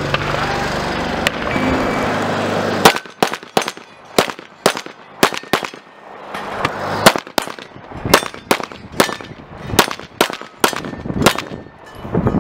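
Pistol shots fired by a competition shooter running a stage: a long string of about twenty sharp reports, mostly in quick pairs, starting about three seconds in. Before that there is a stretch of steady noise.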